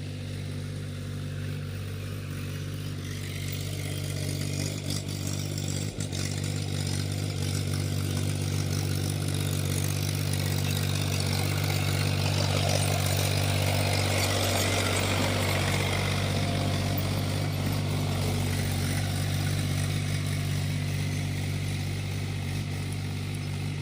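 Tractor's diesel engine running steadily while ploughing a muddy paddy field, growing louder through the middle and easing off again near the end.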